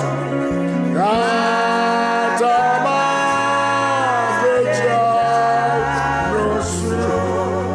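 A devotional song, with a voice singing long held notes that slide up into pitch, over instrumental accompaniment with a steady bass line.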